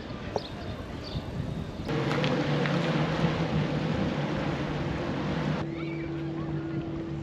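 Jet ski engines running steadily, coming in abruptly about two seconds in after a quieter stretch of harbour ambience. Near the end the sound drops to a single steadier, higher motor hum.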